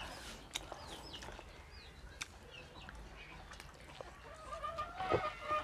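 Domestic chickens clucking in the background, with short high calls in the first half and drawn-out clucks from about four seconds in, plus a few faint clicks.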